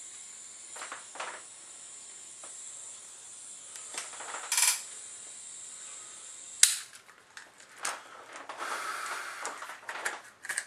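Bernzomatic butane soldering iron hissing steadily with a few small knocks, then its gas cut off with one sharp click about two-thirds of the way through. Knocks and handling noises follow as the iron is set down on the bench.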